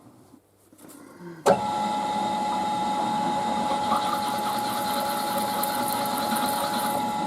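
A milling machine's spindle switches on with a sharp click about a second and a half in, then runs with a steady whine as a countersink is cut deeper into an aluminium part.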